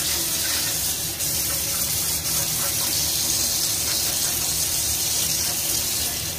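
Tap water running steadily and splashing onto a slotted stainless steel chimney filter tray in a sink as the grease is rinsed off it.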